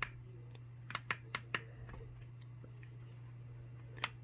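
Buttons on a La Crosse 602-249 alarm clock being pressed: a click at the start, four quick clicks about a second in, and one more near the end, over a low steady hum.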